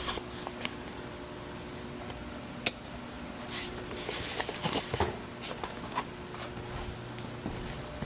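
Scattered rustles, light knocks and one sharp click of the camera being handled, carried and set down, over a steady low room hum. The handling sounds are busiest from about three and a half to six seconds in.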